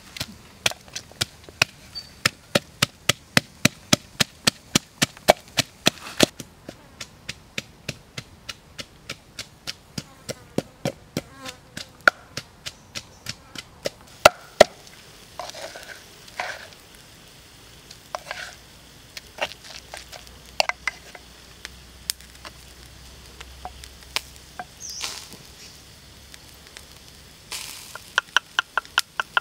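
Wooden pestle pounding chopped herbs in a wooden mortar: quick, even strikes about four a second, becoming sparser and irregular in the middle, then quickening into a fast regular run again near the end.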